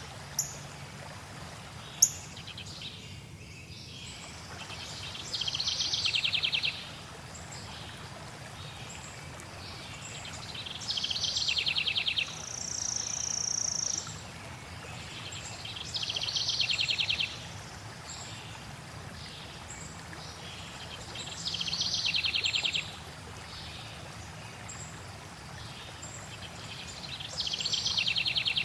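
Steady rush of flowing water with a songbird repeating the same short, rapid trilled song about every five seconds, plus one held high whistle in between. Two sharp clicks come within the first two seconds.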